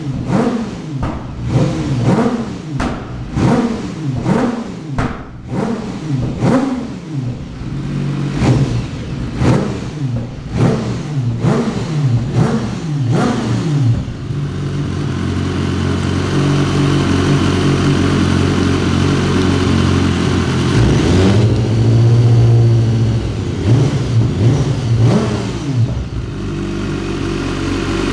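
BMW S 1000 RR's inline-four engine blipped again and again, rising and falling in pitch about one and a half times a second, for roughly the first half. It then runs louder at a steadier, higher speed, with a brief dip and a couple of quick rises near the end.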